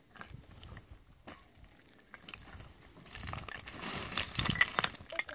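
Dry branches and brush crackling and rustling as they are handled for firewood: scattered clicks at first, then denser crackling from about three seconds in.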